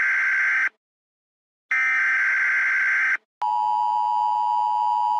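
Emergency broadcast alert tones from a television: a harsh buzzy tone, like the data bursts that open a US Emergency Alert System message, stops early, sounds again for about a second and a half, then after a short break gives way to a steady single-pitched alert tone.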